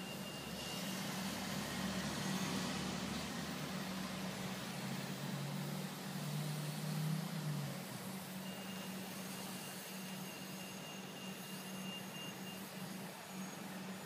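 City buses idling close by, a steady low engine hum over outdoor traffic noise. A thin high whine joins partway through and fades near the end.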